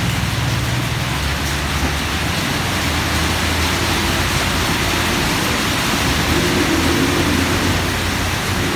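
Steady downpour of monsoon rain, an even hiss, with the low hum of buses and cars driving along the wet road underneath it.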